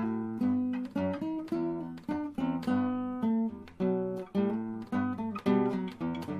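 Background music: an acoustic guitar playing, with notes and chords plucked about twice a second, each ringing and dying away.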